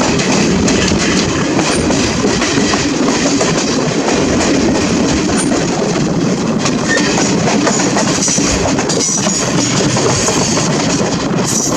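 Indian Railways train running along the track: a steady, loud rumble of the cars and wheels on the rails, with a few faint clicks.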